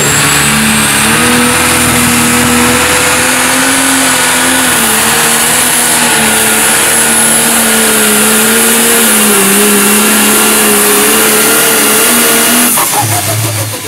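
Pro stock pulling tractor's turbocharged diesel engine running flat out under load as it drags the weight-transfer sled, its note wavering up and down with a high whistle above it. Near the end the throttle is shut and the engine sound drops away suddenly.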